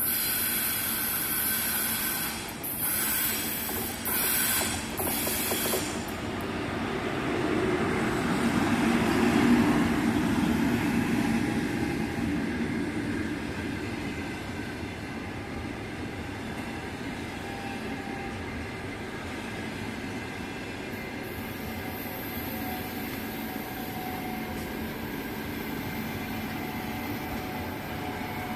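Long-distance passenger train's coaches rolling past on the rails without stopping: a steady rumble of wheels on track, loudest about ten seconds in, then settling into even rolling noise. A high hiss with brief breaks runs through the first six seconds.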